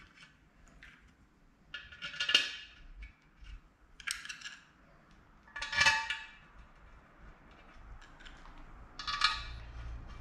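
Steel bolts clinking against a handheld metal parts dish as they are picked out and started by hand into the engine: four louder metallic clinks with a short ring, a few seconds apart, and softer rattles between.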